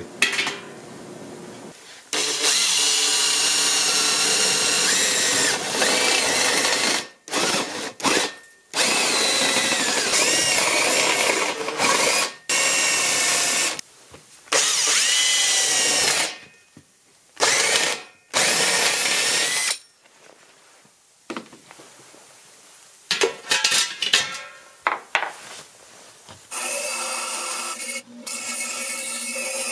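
A power drill with a step drill bit cutting through the thin metal wall of a pony keg to enlarge a hole. It runs in several bursts of a few seconds each, stopping and starting, with a whine that rises and falls. Near the end, a bench grinder runs steadily.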